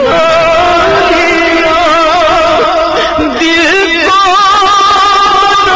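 A man singing a naat in long, held melismatic notes that waver and slide in pitch, with no words.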